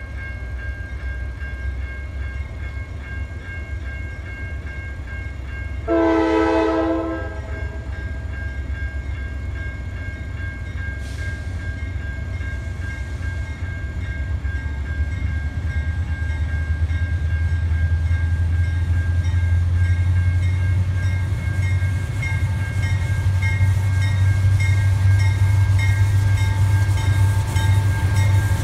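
CSX diesel locomotive hauling a coal train approaching: its low engine rumble grows steadily louder, with one short blast of the horn about six seconds in.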